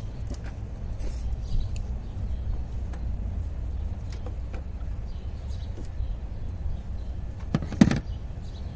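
Steady low outdoor rumble of street background, with a few light clicks and one sharp knock just before the end.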